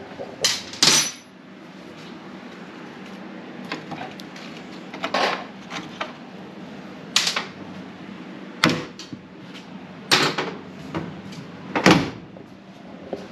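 Scattered sharp clunks and knocks of hands and parts handled at a classic pickup's steel door and cab, over a steady low hum.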